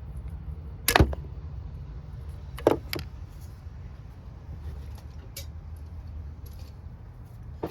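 Needle-nose pliers and hand tools clinking against metal engine parts while working a stuck piece loose: a handful of sharp metallic clicks, the loudest about a second in, over a steady low hum.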